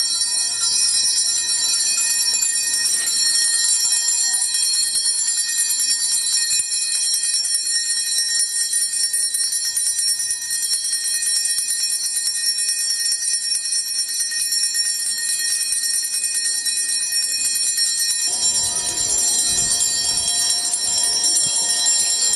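Altar bells shaken in a continuous jingling ring as the priest blesses the people with the monstrance at Benediction. Voices join about three-quarters of the way through.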